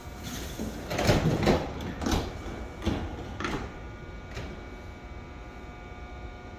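A run of six short hissing bursts from a Mugunghwa-ho passenger train standing at the platform before departure, over a steady low hum.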